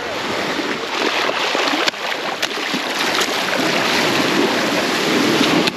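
Small waves washing in and churning over the sand in shallow surf, growing a little louder, with a few brief sharp sounds.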